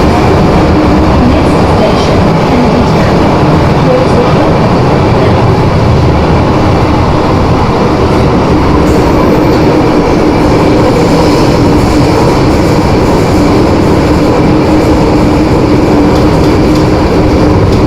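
Running noise inside an MTR Island Line M-Train car at steady speed: wheel and track rumble with a steady whine from the traction equipment underneath, holding one pitch. The car, C425, is known for its strong traction whine, its 'ghost howl'.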